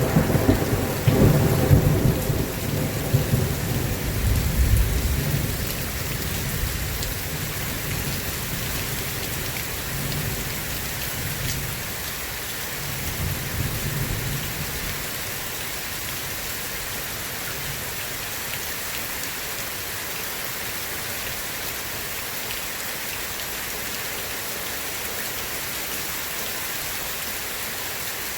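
Steady rain falling, with rolling thunder rumbling loudest over the first few seconds, a weaker rumble about halfway through, then only the even hiss of rain.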